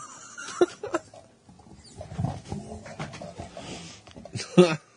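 People laughing without words, choppy and uneven, with one short, loud vocal burst near the end.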